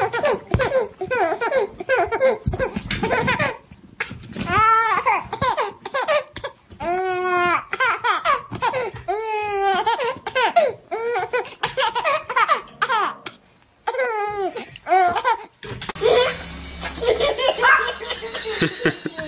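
A baby laughing hard in repeated bursts of high-pitched belly laughs. About sixteen seconds in, the sound changes to another, noisier recording of a baby laughing.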